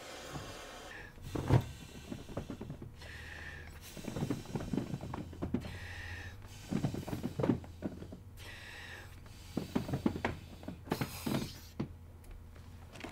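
Someone blowing by mouth through an inflation hose to fill a folding kayak's air sponsons, a long breath about every two and a half to three seconds, with handling knocks in between.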